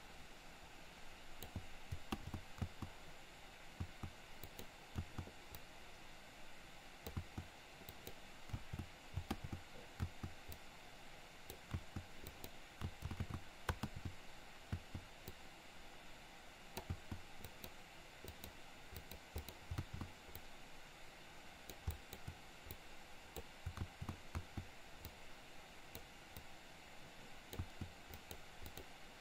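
Faint, irregular clicks and soft taps of a computer keyboard and pointing device being worked, over a steady low hiss.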